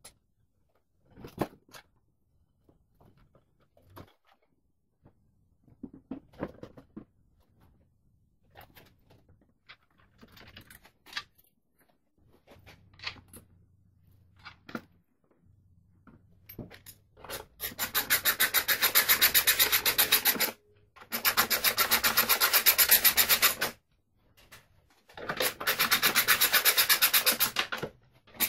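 Light knocks and clicks of parts being handled, then a socket ratchet worked in three runs of rapid, even clicking, each about three seconds long, while bolts are run in.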